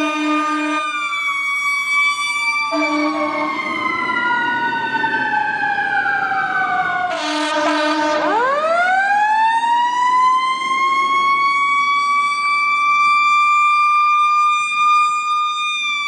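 Fire trucks' air horns blasting in chords over their sirens. Horn blasts come at the start, around three seconds in, and just before the halfway point, while a siren falls in pitch. Then a siren winds up from low and holds a steady high wail through the second half.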